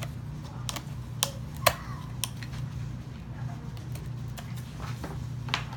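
Scattered light clicks and taps as laptop RAM sticks are pulled from their sockets and handled, over a steady low hum.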